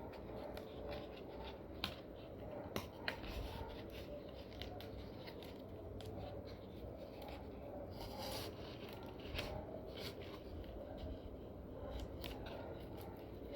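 Cardboard packaging and tape being handled during an unboxing: faint scratching and rubbing with scattered sharp clicks, and a brief rasping noise about eight seconds in.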